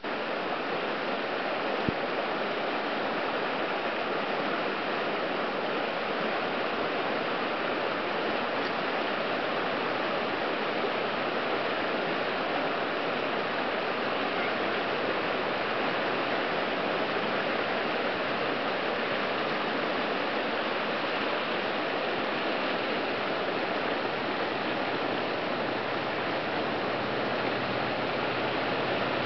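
Whitewater rapids of a river rushing steadily, a continuous dense sound of churning water, with one brief click about two seconds in.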